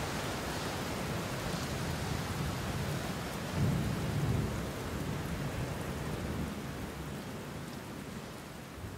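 Steady rain falling, with a low rumble of thunder swelling about three and a half seconds in and dying away; the rain grows quieter toward the end.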